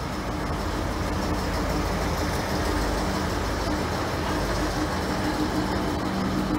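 Two coupled V/Line Sprinter diesel railcars running past along the platform: a steady engine hum with two low tones over a continuous rumble, getting slightly louder in the first couple of seconds.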